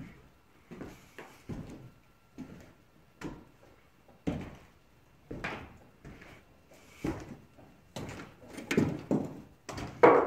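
Footsteps on a wooden subfloor: irregular thuds and knocks about once a second, the loudest near the end.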